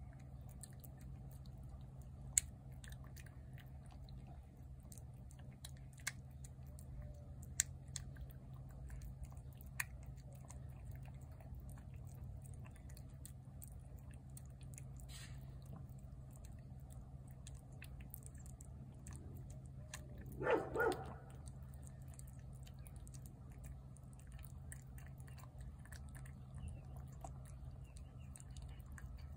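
A cat chewing wet cat food from a plate: faint scattered clicks and smacks of chewing over a steady low hum. About twenty seconds in, a brief louder double sound stands out.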